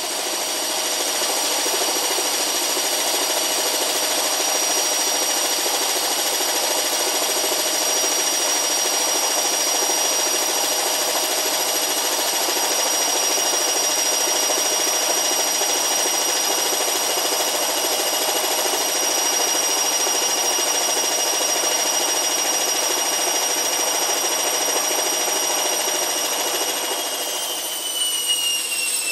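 Hotpoint Aquarius Extra washing machine spinning at high speed: a steady high whine over a rushing drone. In the last couple of seconds the whine starts to fall in pitch as the drum begins to slow.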